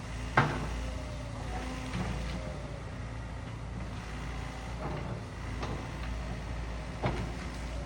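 SANY SY95 excavator's diesel engine running steadily, with several sharp knocks or cracks over it, the loudest about half a second in and others around two, five and seven seconds in.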